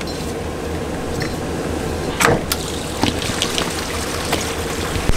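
Waste water draining from an RV holding tank through a flexible sewer hose: a steady rush of liquid. A short falling squeal comes about two seconds in, followed by a few light clicks.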